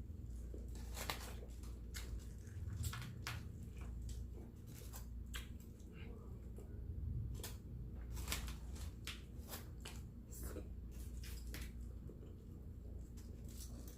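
Close-miked chewing of a homemade burger: irregular wet mouth clicks and smacks, several in quick succession at times, over a steady low hum.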